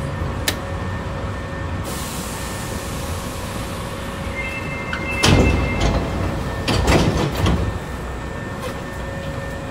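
Hankyu 3300 series commuter train standing at a station with its equipment humming steadily. About four and a half seconds in, a short high tone sounds, and the sliding doors move with a heavy thud, followed by a second clatter of door noise about a second and a half later.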